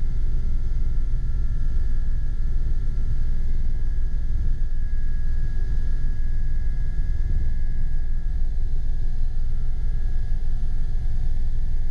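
Gazelle SA341C turbine helicopter in steady flight, heard inside the cabin: a loud, steady deep rumble of rotor and airflow with a steady high turbine whine over it.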